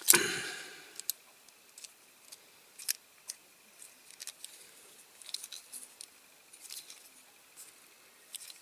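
Scattered small, sharp metallic clicks and ticks of a hand tool handling a diecast metal model, as bent parts behind its wheel are worked straight.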